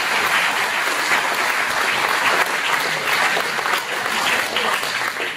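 Audience applauding, a dense steady clapping that stops near the end.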